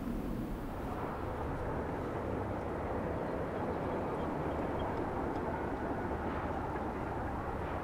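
Steady outdoor rumble with no distinct events, the general noise of an open construction area.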